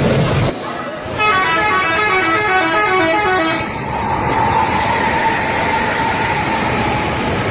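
Bus 'telolet' horn, a multi-tone horn playing a quick melody of stepped notes for about two and a half seconds, then holding one long note over a noisy background.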